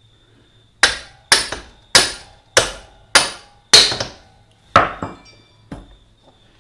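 Hammer tapping the rear axle bolt of a Honda CB125E through the wheel hub and swingarm to seat it: eight sharp metal strikes, each ringing briefly, about every 0.6 s with a short pause before the last two, the last one lighter.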